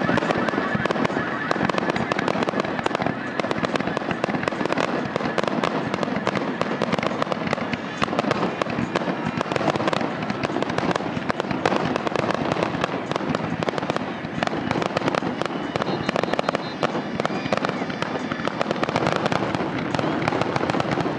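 Fireworks display: a dense, continuous barrage of bangs and crackling from aerial shells bursting, with no let-up.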